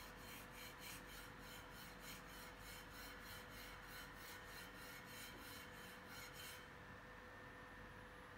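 Near silence with faint, rhythmic rubbing, about four strokes a second, that stops about six and a half seconds in: a copper plate sliding to and fro on a tabletop. A faint steady hum runs underneath.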